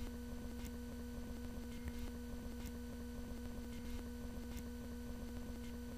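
Steady electrical hum in the recording: one low tone with fainter overtones, plus a few faint clicks.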